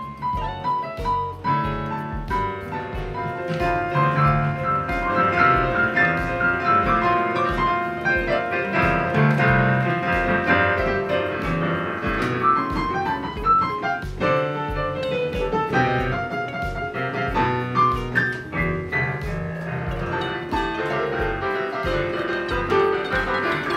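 Digital piano played with both hands, a flowing run of chords and melody that grows fuller a few seconds in, with a steady low pulse about twice a second underneath.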